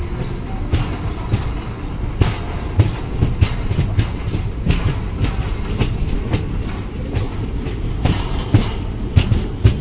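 Wheels of a moving passenger train on a river bridge: a steady low rumble with irregular clicks and knocks as they run over the rail joints, heard close from a coach doorway.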